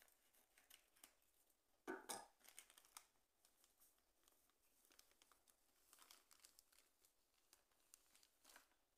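Faint crinkling and rustling of a plastic bag of cornmeal being cut open and handled, with one louder rustle about two seconds in.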